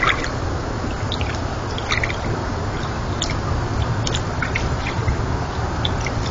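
Steady hiss and low rumble from a trail camera's microphone at night, with scattered short ticks and clicks.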